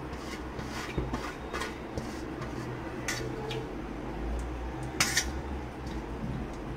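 Kitchen utensils clinking and knocking against a cooking pot: a few scattered light clicks, the loudest about five seconds in, over a steady low hum.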